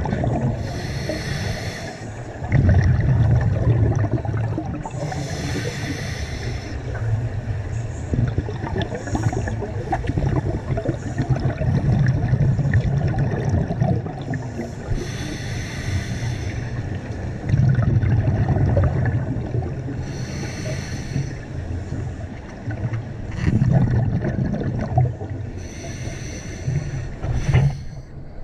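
A scuba diver breathing underwater through a regulator. Each breath is a drawn hiss from the regulator, followed by a louder rumble of exhaled bubbles. There are about five slow breaths, roughly every four to five seconds.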